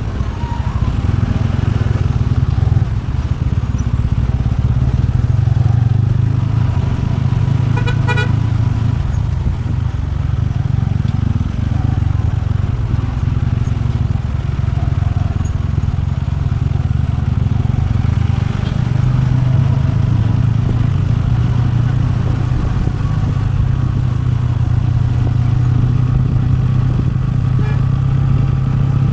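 TVS Ronin single-cylinder motorcycle engine running steadily under way. A short horn toot sounds about eight seconds in.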